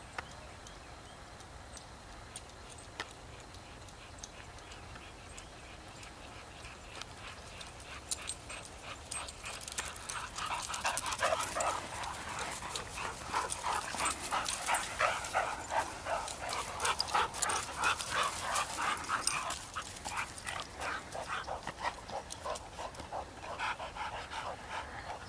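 A dog whining and yipping in quick, short, repeated cries, starting about eight seconds in and going on for most of the rest. This is the excited whining of a dog fixated on a tennis ball during play.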